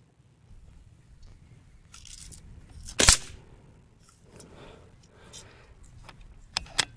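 An AF500 PCP air rifle fires one shot about three seconds in: a single sharp crack. Near the end come two quick sharp clicks as the rifle's bolt is worked.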